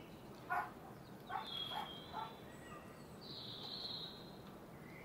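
Faint mews from 17-day-old kittens: several short, high calls in the first couple of seconds, then a thin high squeak about three seconds in.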